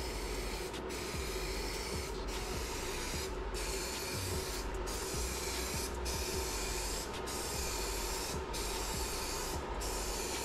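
Aerosol can of One Hit Wonder metallic silver spray paint hissing in passes of about a second each, with short breaks between them, as a base coat goes onto primed engine covers.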